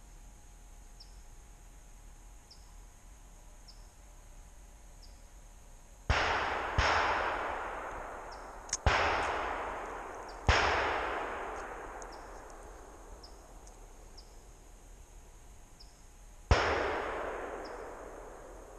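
Five gunshots, each a sharp crack followed by a long rolling echo through the woods that fades over a couple of seconds. The first two come close together about six seconds in, two more follow about two and four seconds later, and the last comes near the end. A faint high chirp repeats evenly in the background.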